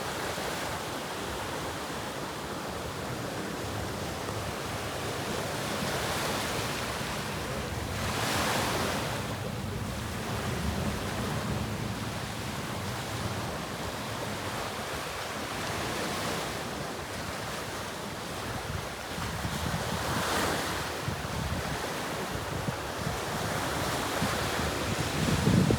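Ocean waves washing in, a steady rush of surf that swells every few seconds as waves break. Wind buffets the microphone.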